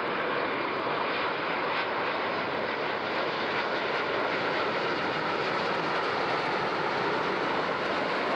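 Boeing 787-9 airliner passing low on final approach with its landing gear down, its two turbofan jet engines giving a steady, even rushing sound.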